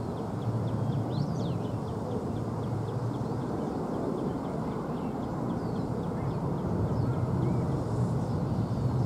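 Distant low rumble of an Airbus A350-900's Rolls-Royce Trent XWB jet engines as the airliner rolls along the runway, growing slightly louder. Faint quick high chirps, about four a second, run over it.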